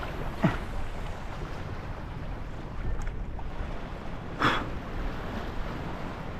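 Wind rumbling on the microphone over choppy open water, with two short swishes: one about half a second in and one about two-thirds of the way through.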